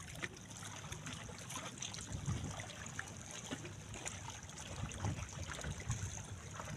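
Water lapping and trickling against shore rocks, with a low uneven rumble and small scattered clicks from handling the fishing line.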